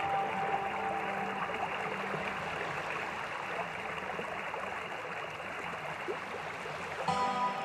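Background ambient music track: a steady soft rushing wash like running water, with the music's held tones dropping out just after the start and returning about seven seconds in.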